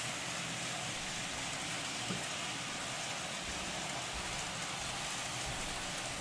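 Steady, even hiss of background noise with no distinct mechanical rhythm, and one small tick about two seconds in.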